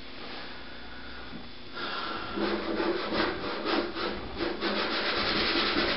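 Rapid back-and-forth rubbing strokes, about three a second, starting about two seconds in: a rag scrubbing the inside of a refrigerator.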